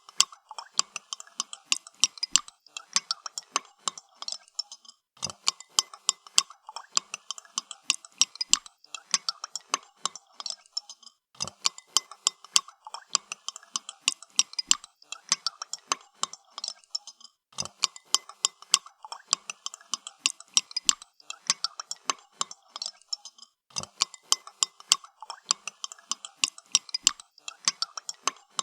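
A spoon stirring coffee in a cup, clinking rapidly against the sides in a quick run of ticks. The stirring comes in spells of about five seconds with a short break between each.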